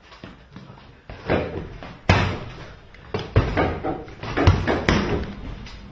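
A flurry of punches and kicks landing on a target: a string of sharp thuds at an uneven pace, starting about a second in.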